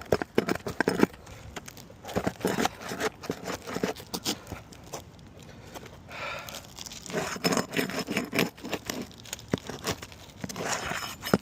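Roof shingles being pried up and worked by hand, with irregular crackling, scraping and tearing and scattered sharp clicks.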